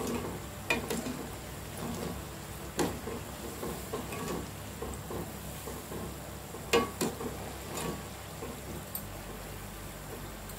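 Small balls of thick batter deep-frying in hot oil in a steel pan, a steady sizzle. A metal slotted spoon clinks against the pan a few times: about a second in, near three seconds, and most loudly near seven seconds.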